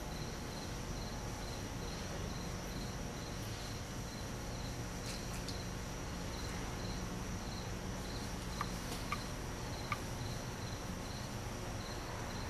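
Faint high chirping that repeats evenly two or three times a second over a steady low hum and hiss, with a few small ticks about two-thirds of the way through.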